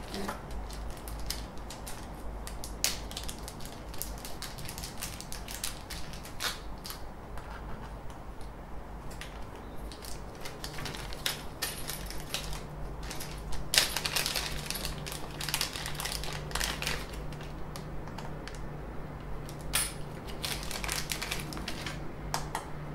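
Hands handling small 3D-printer parts and plastic packaging: irregular clicks, taps and crinkles, busier in a few short spells. A steady low hum comes in about halfway.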